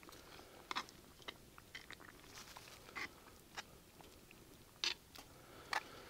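Faint, irregular clicks and scrapes of a metal spoon stirring a casserole in a cast-iron Dutch oven, knocking against the pot, with the louder knocks near the end.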